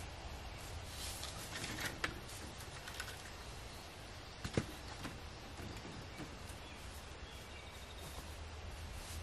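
Sticks being gathered and knocked together as they go into a wood carrier, with footsteps and small crackles on the forest floor. One sharper knock comes a little after the middle.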